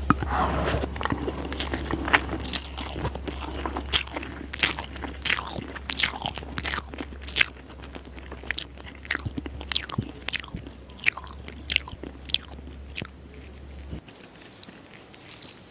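Close-miked chewing of a mouthful of rice and chicken liver curry, with many sharp, irregular wet mouth clicks.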